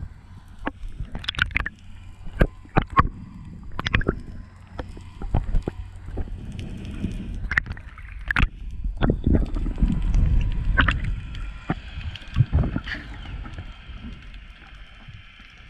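Underwater sound of water moving around the camera: a low rumble that swells to its loudest about ten seconds in, with many irregular sharp clicks and knocks.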